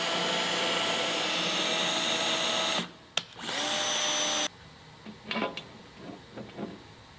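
Handheld electric power tool running steadily for about three seconds, a brief blip of the trigger, then a second run of about a second that starts with the motor spinning up. A few light knocks follow.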